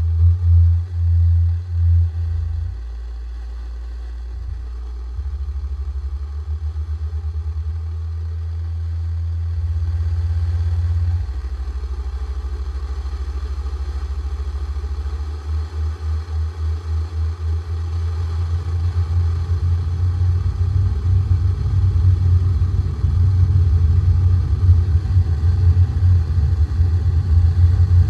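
Industrial noise music: a deep bass drone that pulses in steady beats, changing its pattern every few seconds and growing louder and denser over the last third.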